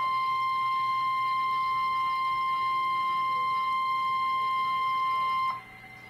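NOAA Weather Radio's 1050 Hz warning alarm tone: one steady high tone that cuts off suddenly about five and a half seconds in, leaving faint radio hiss. The tone signals that an urgent warning, here a tornado warning, is about to be read.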